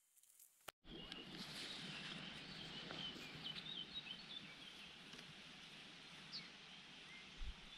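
Faint birdsong, many short chirps, over a steady outdoor hiss. It starts abruptly just under a second in, after a moment of silence.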